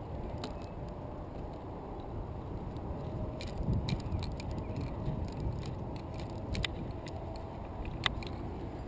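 Climbing gear clinking: metal carabiners and quickdraws knock together in a scatter of light clicks from about three and a half seconds in, the sharpest near the end. Underneath is a steady low rumble of wind on the microphone.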